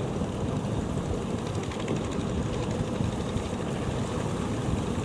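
Rough surf breaking and churning, heard as a steady rushing noise, with wind on the microphone.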